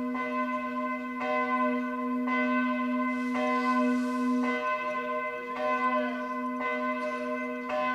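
A single church bell tolling, struck about once a second, with a steady low hum ringing on between the strikes.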